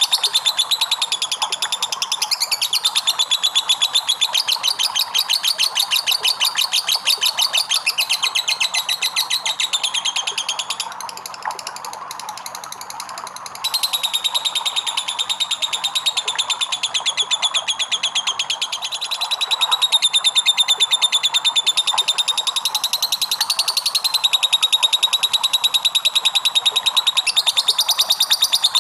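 Lovebird's long 'ngekek' trill: a continuous, very fast high-pitched chattering, with a short quieter break about eleven seconds in before it starts again.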